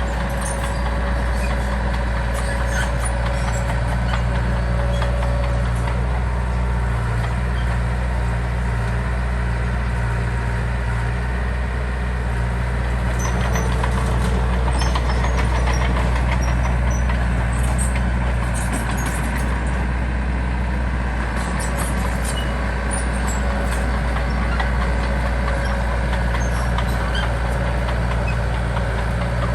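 Heavy diesel engine of earthmoving machinery running steadily, a bit louder around the middle, with faint clicks and clinks over it.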